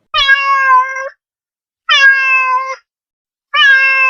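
Domestic cat meowing three times, each meow about a second long and held at a fairly even pitch.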